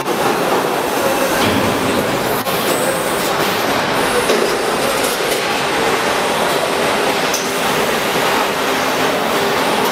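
Automatic vegetable vacuum packing machine running: a steady, loud mechanical noise with a few sharp clicks from its moving parts.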